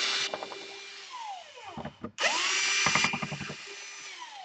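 Small electric screwdriver backing out laptop case screws in two short runs: the motor spins up, runs, then winds down with a falling whine, once near the start and again about two seconds in.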